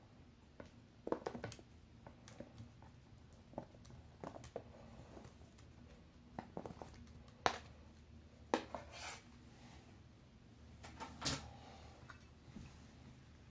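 A knife tapping and scraping on a plastic cutting board as sliced strawberries are pushed off it into batter: irregular light clicks and short scrapes, the sharpest taps about halfway and a little before the end.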